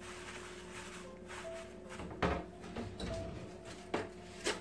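A towel being tucked over a ceramic bowl, with a few soft knocks of hands and objects against the bowl and countertop, the clearest about two seconds in and near the end.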